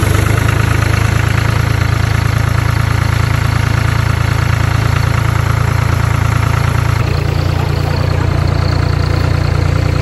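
A New Holland compact tractor's diesel engine running steadily, heard up close from the seat.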